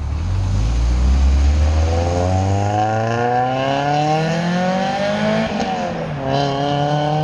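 1997 Honda Prelude's four-cylinder engine through an Apexi WS2 cat-back exhaust, accelerating hard as the car pulls away: the exhaust note climbs steadily in pitch for about five seconds, dips at a gear change about six seconds in, then starts climbing again in the next gear.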